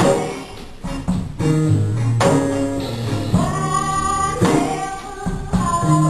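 Women singing with instrumental backing; the music drops back briefly near the start, then the full band and voices return.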